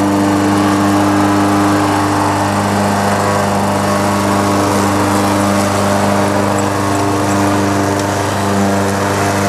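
Gasoline walk-behind push mower's small single-cylinder engine running steadily at a constant speed as it is pushed across the grass.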